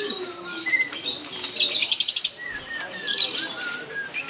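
Caged songbirds singing: bursts of fast, high trilling chatter, the loudest about two seconds in, with short sliding whistled notes in between.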